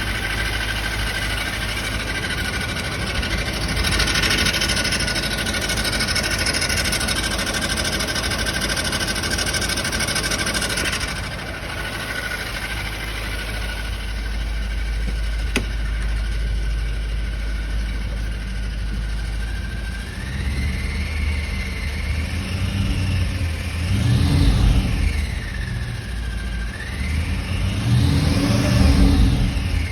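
Audi S4 B7's 4.2-litre V8 engine idling with a steady high whine over it for the first ten seconds or so, a strange sound the owner cannot place. Near the end the engine is revved up and let fall back twice.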